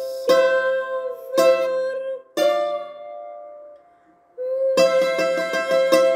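Bouzouki played with a pick: a few separate picked notes that ring on, then, after a short gap, fast tremolo picking on one held note near the end.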